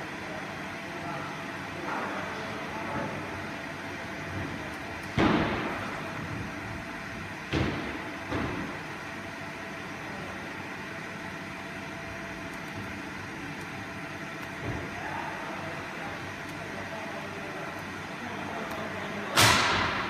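Steady workshop background hum broken by a few sudden knocks or bangs: one about five seconds in, two more close together a few seconds later, and the loudest near the end.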